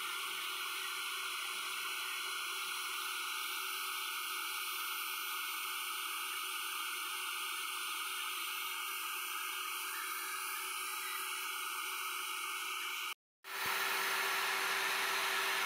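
Electric diamond core drill running steadily as its water-cooled core bit cuts through the reinforced-concrete wall of a water tank: a steady whine over a hiss. The sound cuts out for an instant about thirteen seconds in, then resumes slightly louder.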